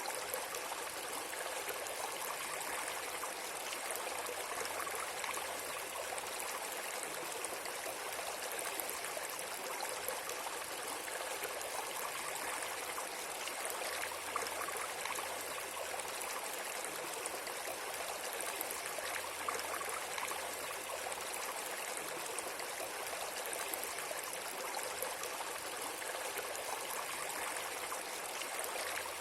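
Steady, even rush of flowing water, like a stream, unchanging throughout.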